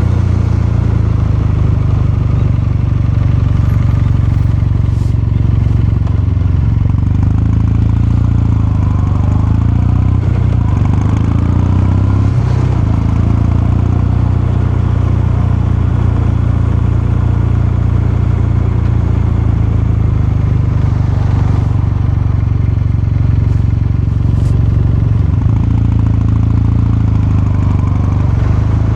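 Kawasaki Meguro K3's 773 cc air-cooled parallel-twin engine and exhaust running steadily under way, with the engine speed dipping and picking up a little around the middle.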